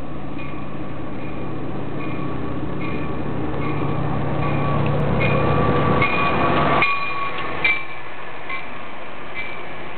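Metra diesel commuter train pulling into a station: the locomotive's engine drones steadily as it approaches and passes close by about seven seconds in, then the bilevel coaches roll past more quietly. A bell rings a little over once a second throughout.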